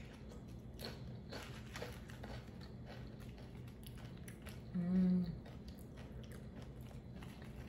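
Mouth crunching and chewing tortilla chips dipped in guacamole, in a run of sharp crunches. A short hum of the voice comes about five seconds in.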